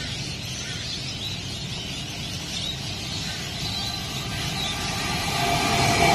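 Queensland Rail electric Tilt Train approaching at speed, its running noise building steadily and a whine rising near the end as it comes alongside. Under it is a steady low hum.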